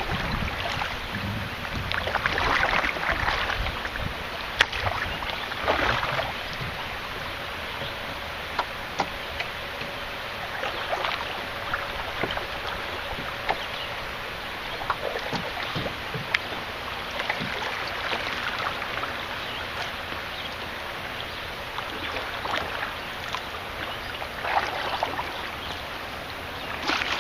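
Canoe being paddled on a river: water swishing and splashing with a paddle stroke every four or five seconds, and small drips and knocks between strokes.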